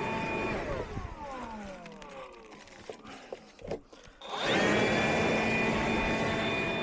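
An electric blower motor switched off, its whine falling in pitch as it spins down, a few clicks and knocks, then switched back on and running steadily at full speed again about four seconds in.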